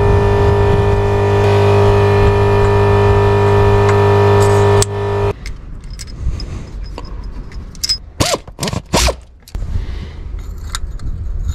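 A steady machine hum with several constant pitches cuts off abruptly about five seconds in. After that come a few sharp metal clinks and scrapes as parts are handled at the engine's crankshaft pulley, the loudest of them near the end.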